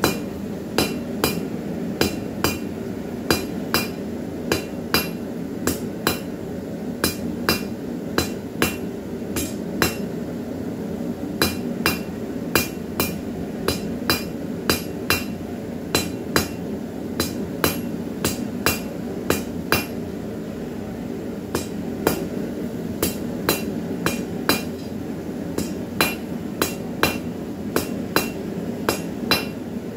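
Hand hammer striking hot square steel bar stock on an anvil to draw out a taper: a steady series of ringing blows, about two a second, with a short pause about two-thirds of the way through. A forge runs steadily underneath.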